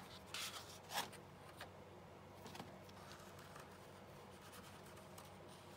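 Paper sheets being handled and shifted on a desk: a few short, faint rustles in the first seconds, the loudest about half a second and a second in, then quiet room tone.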